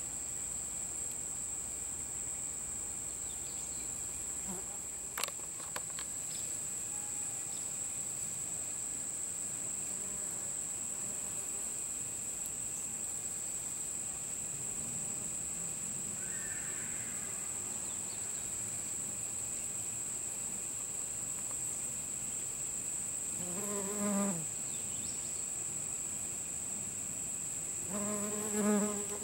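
Steady high-pitched insect chorus, like crickets, with a flying insect buzzing close by twice near the end.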